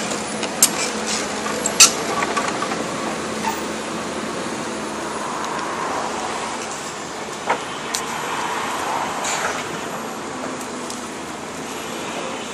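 Hydraulic excavator's diesel engine running steadily, rising and falling a little in the middle, with a few sharp knocks about half a second and two seconds in, then twice more around seven and a half to eight seconds.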